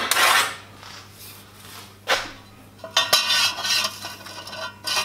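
A steel ruler and a stainless steel tube being handled on a wooden workbench. There is metal scraping and rubbing at the start and again near the end, with a few sharp clinks about two and three seconds in.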